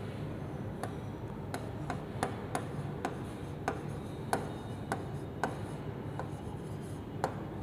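Stylus tip tapping and clicking on the glass of an interactive touchscreen board while handwriting: about a dozen sharp, irregular clicks. A steady low hum runs underneath.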